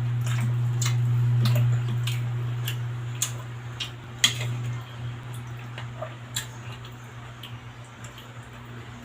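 Eating sounds: scattered sharp clicks and taps of a spoon on a plate and wet chewing, over a steady low hum that swells and then fades about halfway through.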